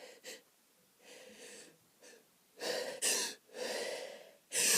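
A person's gasping in-breaths, three or four in the second half, building up to an allergy sneeze.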